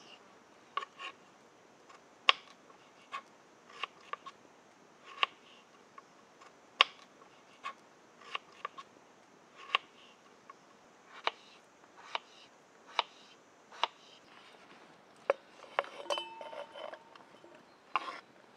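A knife peeling a potato by hand, a sharp click at the end of each stroke, roughly one a second. Near the end comes a short bout of rustling with a brief metallic ring.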